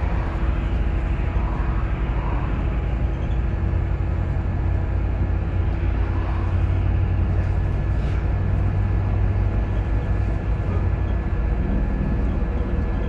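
Steady low rumble of a moving bus heard from inside the cabin: engine and road noise, with a faint steady whine above it.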